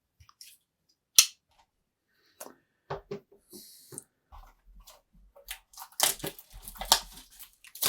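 A trading-card box and its packs being handled and opened: a sharp snap about a second in, then scattered clicks, a short rustle and denser crinkling of packaging toward the end.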